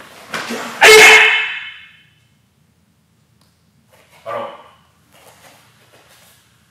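A loud martial-arts shout (kihap) with the strike and kick of a Tae Kwon Do self-defense technique, lasting about a second and fading. A shorter, quieter vocal sound follows about three seconds later.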